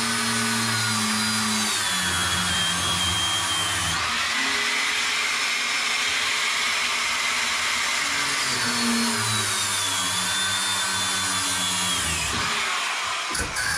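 Handheld power tool running steadily while cutting through pipes in a wall, its whine dropping in pitch twice as the blade bites under load. It stops near the end, followed by a few knocks.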